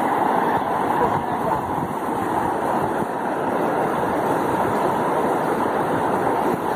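Muddy floodwater rushing across and over a road after heavy rain, a steady, unbroken noise of flowing water.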